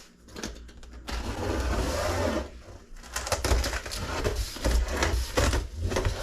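Cardboard solar-panel shipping box being opened by hand: a rasping tear about a second in lasting over a second, then a rapid run of crackles and knocks as the cardboard is pulled and handled.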